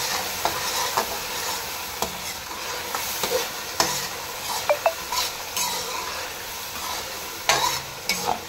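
Peas, carrot strips and chicken sizzling in oil in a metal pan while a metal spoon stirs and scrapes through them, with sharp clicks and a couple of short ringing clinks of spoon against pan.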